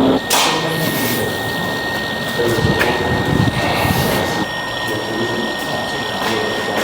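A small motor or power tool running with a steady high whine over a hiss, starting just after the beginning.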